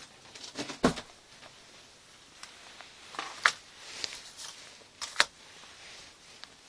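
Handling noise: light, scattered clicks and knocks as things are moved about by hand. Three sharper clicks come about a second in, at about three and a half seconds, and just past five seconds.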